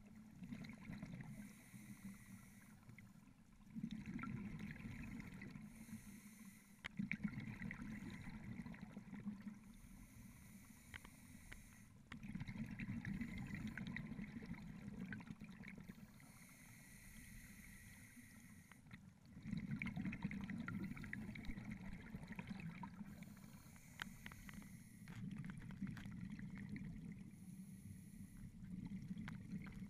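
Scuba diver's breathing through a regulator, heard muffled through a GoPro's underwater housing: a short hiss on each inhale, then a longer burst of bubbling on each exhale, repeating over several breaths.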